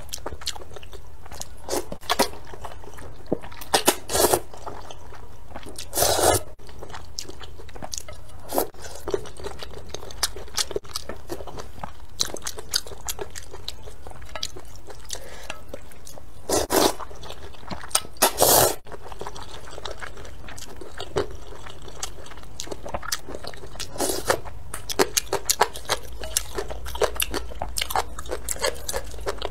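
Close-miked eating of spicy rice noodles in broth: wet chewing and mouth clicks, with a few louder short bursts of slurping or biting.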